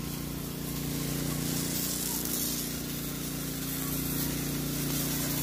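Hose-fed spray lance hissing as it mists orchard trees, over the steady hum of the sprayer's motor-driven pump. The hiss swells in the middle and eases off toward the end.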